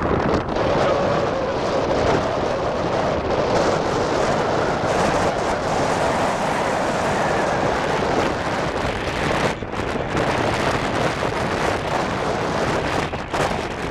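Wind rushing over a handheld camcorder's microphone in a moving car, mixed with the car's road noise. The noise briefly drops about ten seconds in.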